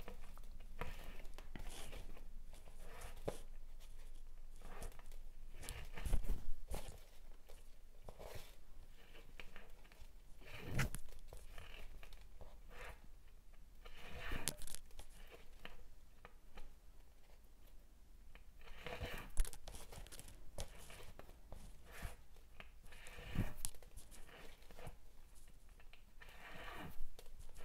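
Waxed polyester threads rasping through fingers as basic macramé knots are tied and pulled tight, in short scattered rustles and sharp scratchy pulls.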